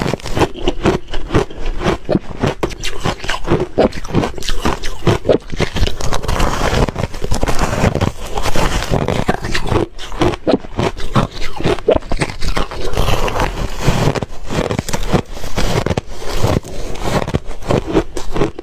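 Reshaved freezer frost ice crunching in a dense, continuous run of crisp crackles.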